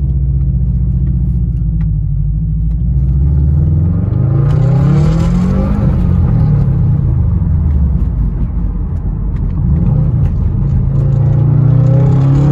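2013 Subaru WRX's turbocharged 2.5-litre flat-four with a straight-piped exhaust, heard from inside the cabin while driving. It runs steadily at first; about four seconds in the revs climb under acceleration, then drop back, and they climb again near the end.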